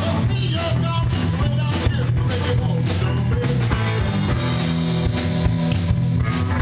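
A live blues-rock band playing: electric guitar, bass guitar, keyboards and a drum kit, with a steady bass line and regular drum hits.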